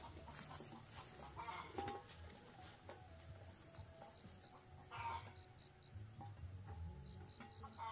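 Faint clucking of poultry: a few short calls about a second and a half in, around five seconds, and again near the end, over a steady high-pitched drone.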